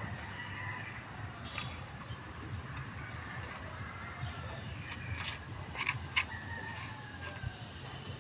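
Small plastic clicks as the folding arms of a compact drone are pulled open and snap into place, the two sharpest close together about six seconds in, over a steady high hiss and low rumble.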